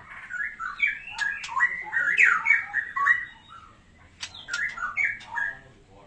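White-rumped shamas (murai batu) calling: a burst of quick, sharp chirping notes with clicks mixed in lasts about three seconds, then after a short pause a second, shorter burst follows.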